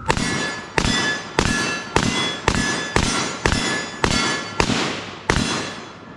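Ten gunshots fired in quick succession, about two a second, each followed by a metallic ringing.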